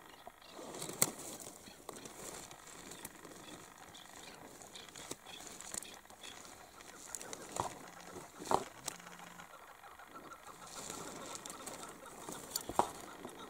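Chukar partridge calls, brief and scattered, over a low outdoor hush, with a few sharp clicks.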